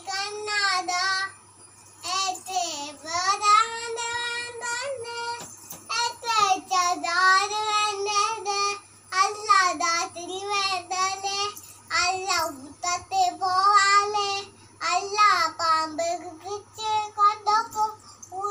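A young child singing alone, unaccompanied, in phrases with some notes held for a second or more and short pauses between lines.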